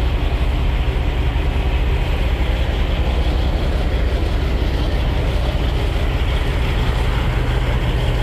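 Semi truck's diesel engine running at a steady speed with road noise, heard inside the cab while driving.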